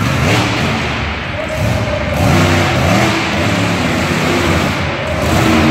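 Monster truck engine revving hard, its pitch surging up and down several times.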